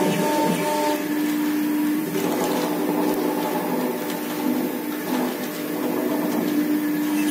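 CNC router with a single 5.5 kW spindle carving a relief into a board: the spindle runs with a steady hum while the bit cuts, and shifting tones come from the axis drive motors as the head moves.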